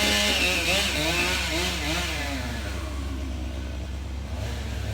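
Gasoline chainsaw running, its engine pitch wavering up and down as it works; loudest in the first second or so, then a little softer.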